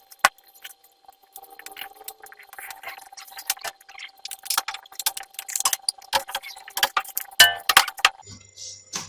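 Laptop being reassembled by hand: many small, irregular clicks, taps and clinks of hard plastic and metal parts and tools, with a quick cluster of clicks about seven and a half seconds in.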